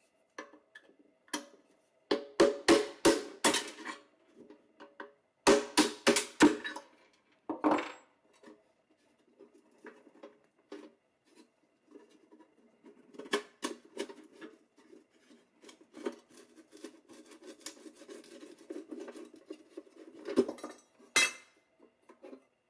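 Small metal parts clinking and clattering as they are handled: two quick runs of sharp metallic knocks in the first few seconds, then a long stretch of lighter, scattered clinks with a couple of louder knocks near the end.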